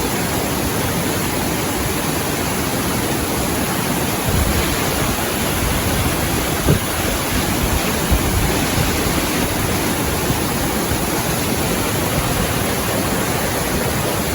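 Steady rush of a swollen mountain stream in spate. From about four seconds in, wind buffets the microphone in low gusts.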